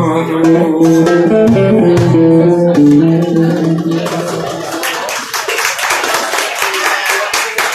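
A small live band playing folk music on violin, electric guitar and hand drum. About four and a half seconds in, the low held notes drop out and the playing turns into quick, busy strumming and drumming.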